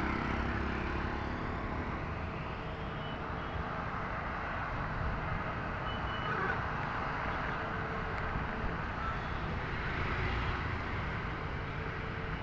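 Steady road traffic noise of cars and buses passing on a rain-wet road.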